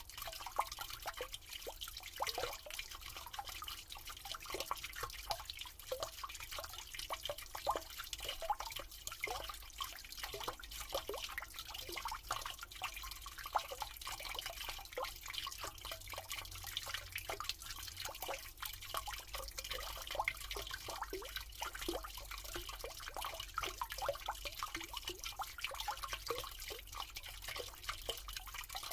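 Water running down a drain: a steady trickle with a constant stream of small drips and bubbly plinks, each quickly rising in pitch.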